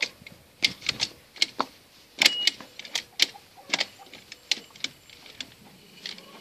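A series of irregular sharp plastic and metal clicks and knocks from handling the controls and levers of a small 110 cc ATV while its engine is off.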